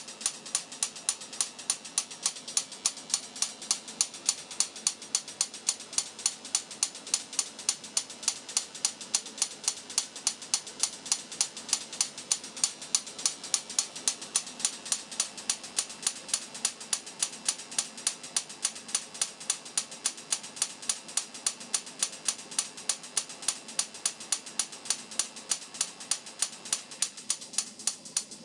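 Experimental high-voltage installation discharging in a steady train of sharp snaps, about three a second, evenly spaced.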